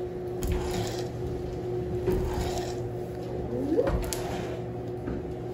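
Wooden paddle working a batch of hot white chocolate fudge across a marble slab: soft, repeated scraping and swishing strokes over a steady low hum.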